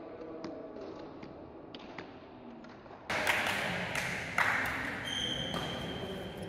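Badminton racket striking a shuttlecock on a serve, a sharp crack about four and a half seconds in, among lighter taps and footsteps on the court. About five seconds in comes a short high-pitched shoe squeak on the court floor.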